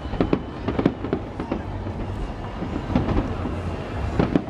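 Aerial fireworks bursting: an irregular run of sharp bangs and crackles, some in quick clusters, over a steady low rumble.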